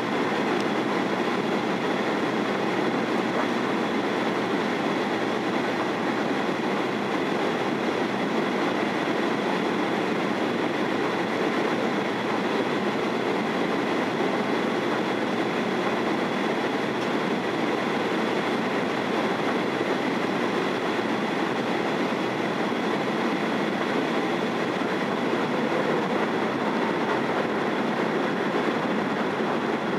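Steady cabin roar inside a Boeing 737-800 in flight on descent: airflow over the fuselage and the CFM56 engines, with a faint steady high tone.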